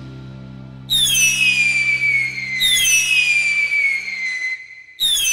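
Whistling fireworks sound effect: three high whistles, each falling in pitch over a hiss. The first comes about a second in, the second a second and a half later, and the third near the end.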